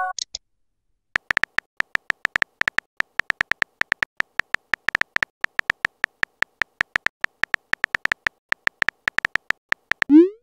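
Phone-keyboard typing sound effect: a fast run of short clicks, about five or six a second, as a text message is typed out letter by letter. Right at the end, a short rising whoosh as the message is sent.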